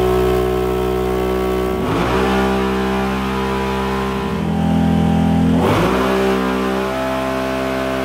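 Can-Am Renegade 1000's V-twin engine running at high revs under load on a chassis dyno during a mild pull, tyres spinning on the rollers. The pitch holds mostly steady, with two brief dips, about two seconds in and just before six seconds.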